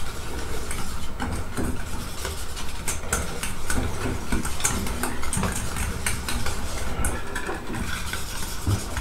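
A utensil stirring thick mayonnaise-and-ketchup sauce in a stainless-steel bowl: a continuous run of scraping and light clinks against the metal, over a low steady hum.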